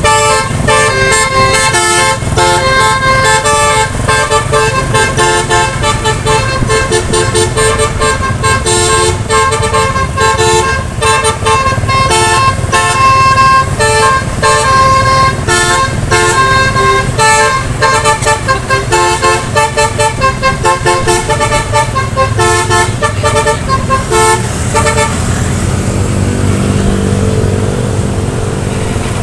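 Bus basuri horn, a set of tuned air horns, playing a quick tune of stepping notes over the bus's low engine rumble. Near the end the tune stops and only a lower steady hum remains.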